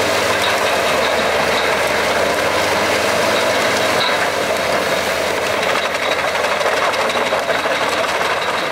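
Albach Diamant 2000 wood chipper with its 770 hp six-cylinder engine running hard under load while chipping heavy logs. The steady, loud mix of the engine and the chipper cutting wood and throwing out chips holds unchanged throughout.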